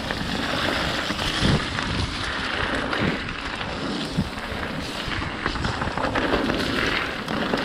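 Mountain bike riding downhill on a dirt and rock trail: wind rushing over a handlebar-mounted action camera's microphone, mixed with tyre noise on loose dirt and leaves and occasional knocks and rattles from the bike going over rough ground.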